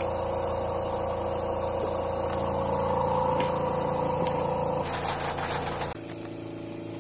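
Vacuum pump of an Ultimate Ez Milker running with a steady motor hum. About six seconds in it drops to a quieter hum.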